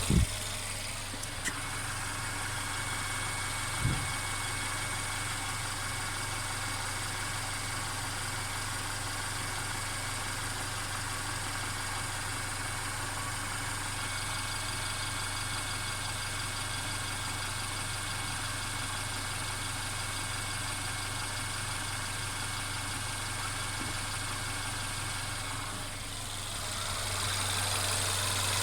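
Mercedes-Benz CLA 250's turbocharged four-cylinder engine idling steadily, with the persistent rattling noise the owner is documenting as a fault. Two short knocks come in the first few seconds, and the sound gets louder near the end.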